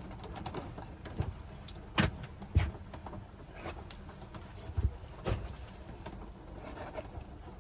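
A handful of irregular light knocks and taps as a paint marker and canvas are handled during painting, over a steady low hum.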